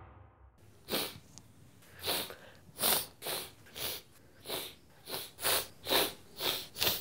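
A man sniffing through his nose again and again, in short quick sniffs that start about a second in and come roughly two a second.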